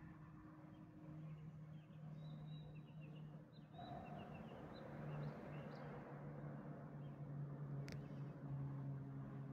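Birds chirping in short high notes for a few seconds, over a faint steady low hum. There is a single sharp click near the end.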